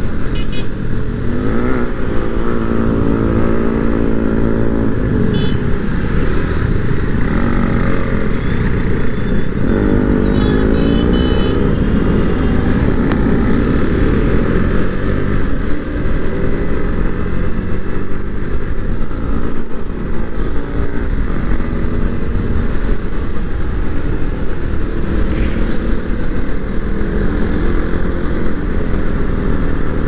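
KTM motorcycles riding together, engines running with the revs rising and falling several times, over a constant rushing noise.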